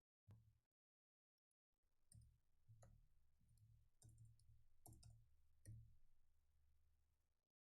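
Faint, irregular clicks of computer keys, roughly one a second, over a low hum.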